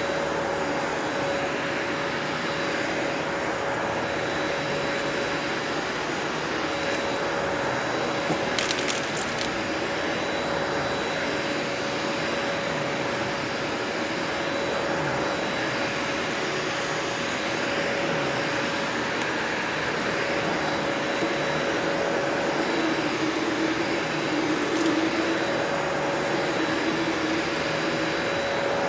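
Sebo Felix upright vacuum cleaner running steadily on high speed with a steady motor whine as it works a sandy rug, with a brief crackle about nine seconds in.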